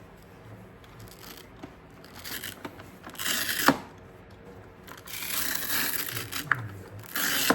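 Rough scraping or rubbing strokes in three bursts, the middle one the longest, with a sharp click about three and a half seconds in.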